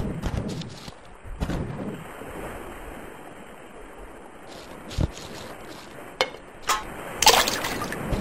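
Surf washing on a shore as a steady background of noise. Over it come a few short sudden sound effects: a low thump about five seconds in, then two sharp sounds and a louder burst of noise about seven seconds in.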